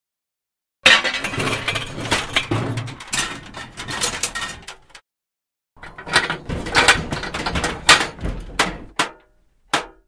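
Scrap metal being handled in separate foley takes: about four seconds of clattering, clinking metal pieces, then after a short break a second take of heavier metal clanks and hits, and a single sharp clank near the end.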